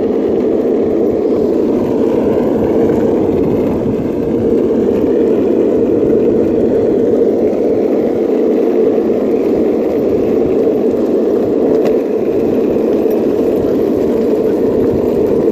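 Longboard wheels rolling fast over asphalt, a steady loud rolling roar with no break.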